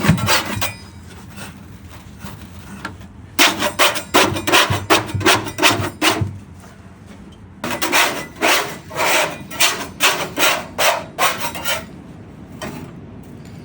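Repeated rasping, scraping strokes at about three a second, in two runs of several seconds each with a short pause between.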